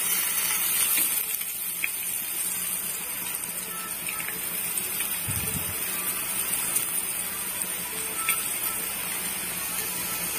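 Boondi, drops of gram-flour batter, deep-frying in hot oil in a pan: a steady sizzle with a few light crackles.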